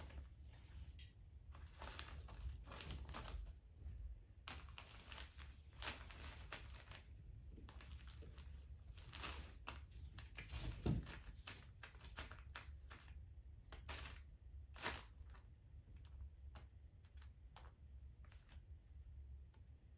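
Faint, intermittent crinkling and rustling as food is wiped clean of wood-chip bedding, with a soft thunk about eleven seconds in.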